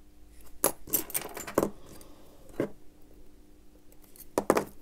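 Small handling clicks and rustles from hands and metal tweezers working on a watch movement: a quick run of them about half a second in, lasting about a second, a single click in the middle, and a close pair of clicks near the end.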